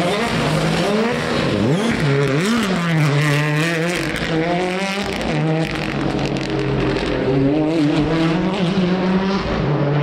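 Ford Fiesta rally car's engine revving hard through a tight hairpin. The revs drop and rise sharply a couple of times in the corner, then climb again in repeated pulls as the car accelerates away.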